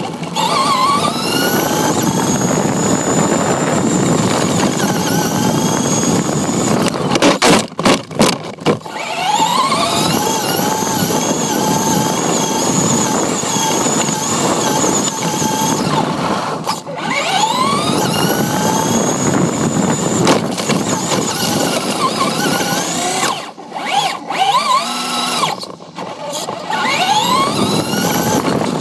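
Electric RC car's motor and gears whining, rising in pitch each time it speeds up (about four times) and then holding steady, over the rumble of its tyres on rough asphalt. Twice the whine breaks off into a few sharp knocks.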